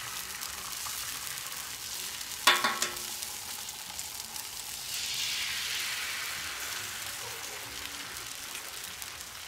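Eggs and pancake batter sizzling on a hot flat-top griddle. About two and a half seconds in there is a sharp knock with a short ring, and from about five seconds in the sizzle swells as a second egg goes down on the hot plate.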